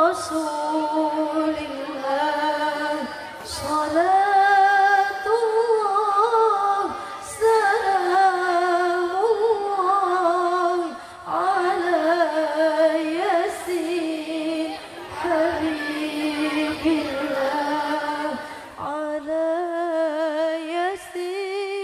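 A woman's solo voice in the Arabic melodic recitation style of a qariah, drawn out in long melismatic phrases with wavering ornaments on held notes, broken by short breaths about every four seconds.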